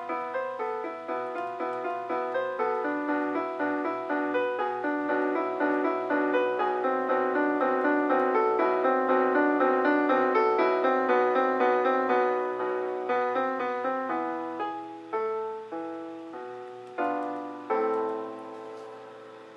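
Solo piano playing a fast run of rapidly repeated notes that swells, then thins into a few separate chords and comes to rest on a held final chord that dies away, the close of the étude.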